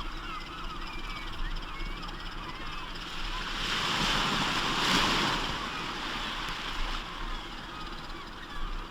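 A sea wave surging and breaking, swelling to its loudest about five seconds in and then falling away, while many birds keep up a chatter of short calls.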